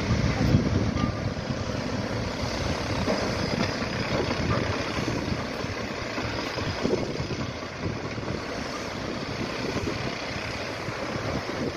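Low, continuous rumble of a distant excavator's diesel engine at work, mixed with gusty wind noise on the microphone.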